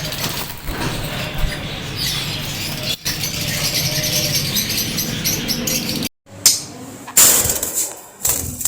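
Caged cockatiels and parrots chirping, with wings flapping. The sound breaks off abruptly about six seconds in, and a few loud sudden bursts follow.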